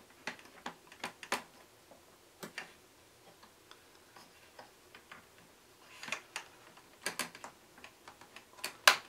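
Light, irregular clicks and taps of hands working a Korg M3's touch panel loose from the plastic pins that still hold it in the chassis. The clicks come in small clusters, and the loudest comes near the end.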